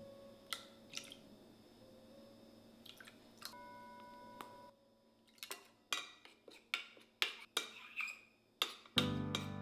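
Small metal spoons clicking against each other and the glass bowl as seasonings are measured out: a few separate clicks in the first half, then a quick run of light taps, about three a second, as a small spoon stirs mustard in a larger spoon.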